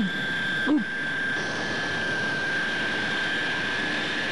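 Cartoon sound effect of compressed helium hissing steadily from a spray gun as it inflates two characters, the hiss brightening about a second and a half in, after two short squeaks at the start.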